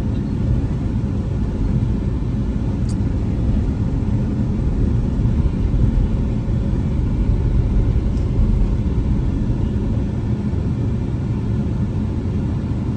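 Steady low rumble of a moving car's engine and tyres, heard from inside the cabin while driving.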